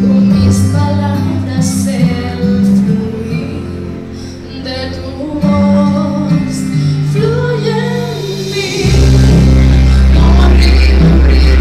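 A recorded Spanish-language Christian worship song playing: singing over guitar and bass. Nearly nine seconds in, the full band comes in louder, with heavy bass.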